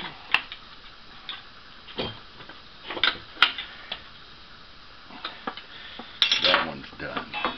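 Scattered light metallic clicks and clinks of small steel hardware, nuts, washers and a wrench, being handled, with a denser cluster of clinks about six seconds in.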